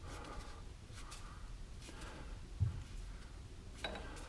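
Lathe tailstock being cranked to press a steel handle into its bore: faint metallic clicks and one dull thump about two and a half seconds in.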